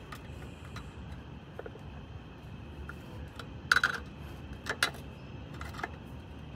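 Metal hand tools clicking and tapping against the stuck ignition-point screws in a Volkswagen air-cooled engine's distributor: a few sharp clinks over a steady low hum, the loudest about halfway through.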